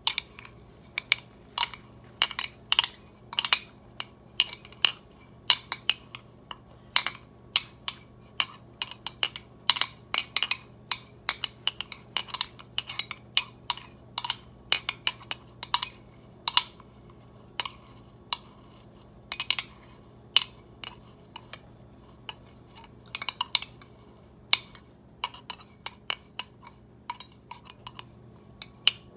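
A metal utensil clinking and tapping irregularly against the inside of a glass mason jar as lemongrass blades are pushed down under the oil, with a few short pauses. A faint low hum runs underneath.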